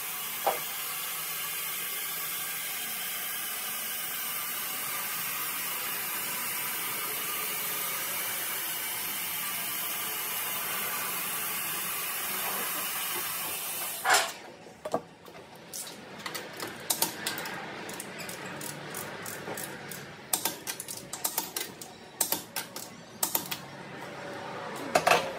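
Hydraulic two-post car lift lowering a car: a steady hiss that stops abruptly about fourteen seconds in as the car settles on the floor. After that come irregular metal clicks and clanks.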